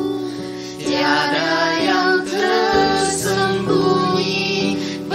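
Christian worship song: a woman's voice sings a melody over held instrumental chords that change a few times.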